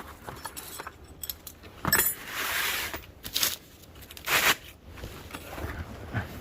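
Metal hand tools and parts clinking, with three louder scraping rustles along the way.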